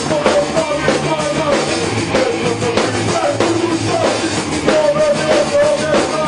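Punk hardcore band playing a song: a vocalist sings into a microphone over a drum kit and guitars, with held, shifting vocal notes.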